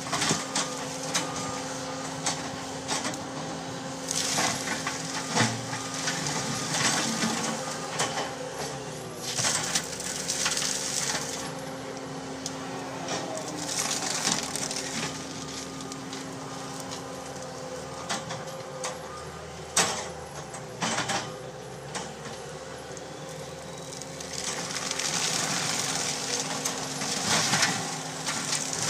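Bobcat skid-steer loader with a forestry mulcher head running with a steady hum, with repeated bursts of crackling, snapping and hiss as the mulcher grinds cedar trees to chips.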